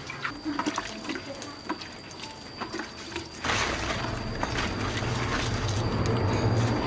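Water rushing or pouring, starting suddenly about halfway through and carrying on steadily, after a few light knocks and clicks.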